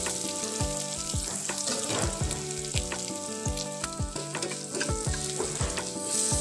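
Curry leaves frying in hot coconut oil in a metal kadai: a steady sizzle, with a perforated metal ladle knocking and scraping on the pan about twice a second as the leaves are stirred.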